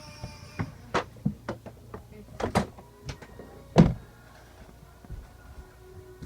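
Uneven knocks and clacks of toys being picked up and set down, about eight in a few seconds, the loudest about four seconds in, then a few fainter taps.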